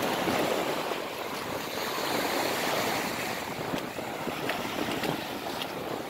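Small waves breaking and washing up a sandy beach: a steady rush of surf, with wind buffeting the microphone.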